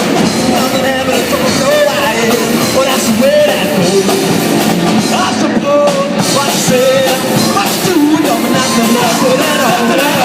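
Rock band playing live, drums and guitars under a singer's voice.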